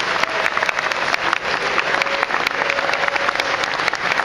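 Audience applauding steadily: many hands clapping at once, a dense patter of individual claps.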